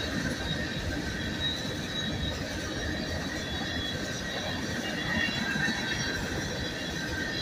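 Loaded coal cars of a freight train rolling past in a steady rumble, with faint high wheel squeal wavering over it.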